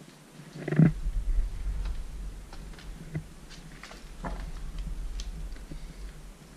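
Handling noise from a hand-held camera moving over stone rubble: a sharp knock about a second in, then a low rumble with scattered small clicks and scuffs of footsteps on stone.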